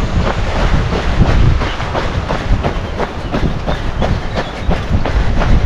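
A trail runner's footsteps striking the ground at a steady running pace, about three strides a second, over a heavy low rumble of wind on the microphone.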